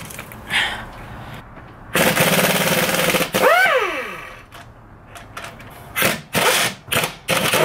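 Impact wrench hammering hard for about a second and a half on a stuck catalytic-converter bolt, then winding down with a falling whine when the trigger is let go. Several short bursts of it follow near the end.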